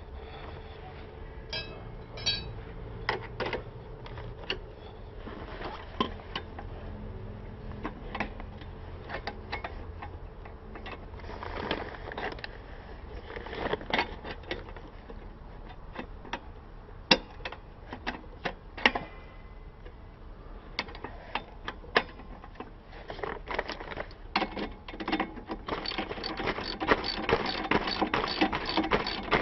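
Scattered metallic clicks and knocks of hand tools working on a motorcycle's rear wheel, then near the end a ratchet wrench clicking rapidly and steadily as a bolt is turned.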